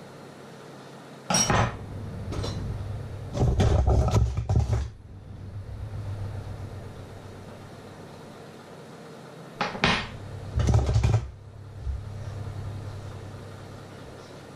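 Kitchenware being handled: clattering and knocking of pots, lids or dishes in two bursts, one from about one to five seconds in and one around ten to eleven seconds in, over a steady low hum.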